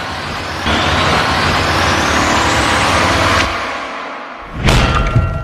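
Outro transition sound effect: a rising whooshing noise sweep that swells about a second in and cuts off sharply a little past three seconds, followed near the end by a sudden hit with a low rumble.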